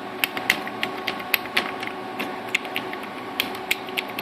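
Quick, irregular clicking from an HP 8566A spectrum analyzer, about four or five clicks a second, over the steady hum of the running instrument.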